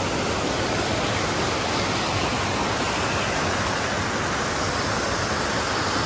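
Stepped waterfall cascading over boulders: a steady, even rush of water.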